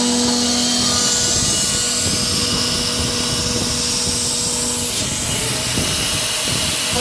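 CNC router spindle milling 5083 aluminium plate with an 8 mm two-flute end mill at about 7,000 rpm: a steady whine over a loud cutting hiss, changing in tone about five seconds in.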